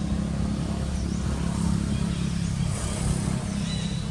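A steady low engine rumble, like a motorbike running nearby, with birds giving short high chirps now and then above it.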